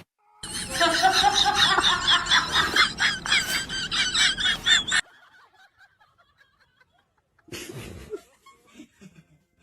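High-pitched laughter that comes in quick, wavering bursts for about four and a half seconds and then cuts off abruptly.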